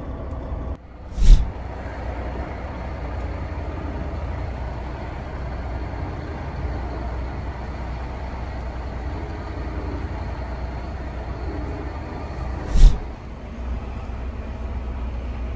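Semi truck's diesel engine running steadily at low speed, heard from inside the cab while backing up. Two short, loud bursts cut through it, about a second in and again near the end.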